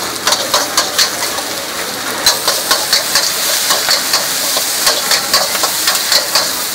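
Metal ladle scraping and clanking against a wok as noodles and greens are stir-fried, about three strokes a second, over a steady sizzle of frying.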